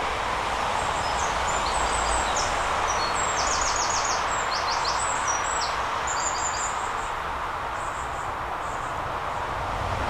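A small songbird singing high chirps and quick trills for most of the first seven seconds, over a steady hiss.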